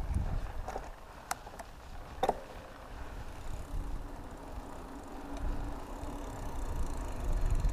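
Mountain bike coasting downhill on asphalt: wind rumble on the camera microphone and tyre noise, swelling near the end, with a few sharp clicks and rattles from the bike in the first couple of seconds.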